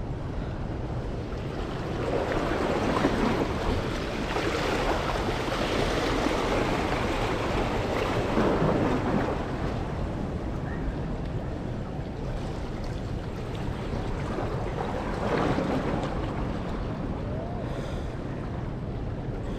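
Sea waves washing against shore rocks, swelling and easing several times, with wind rumbling on the microphone.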